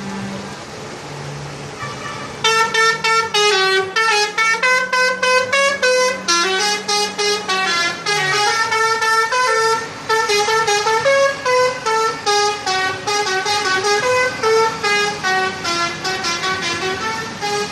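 Indonesian 'telolet' multi-tone bus horn playing a fast tune of short, stepping notes, starting about two seconds in and running on loudly. A steady low hum lies underneath for the first half.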